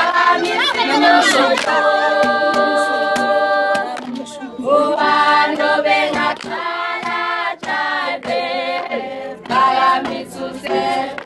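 A group of voices singing a Zulu dance song a cappella, holding long notes with short breaks between phrases, with a few sharp hits in between.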